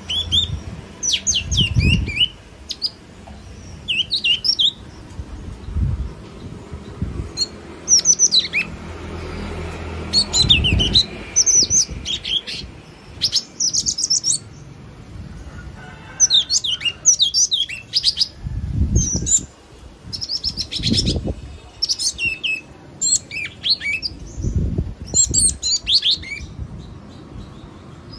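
Yellow-cheeked tit calling: repeated clusters of short, sharp, high chirping notes with brief pauses between bouts, along with several low rumbles.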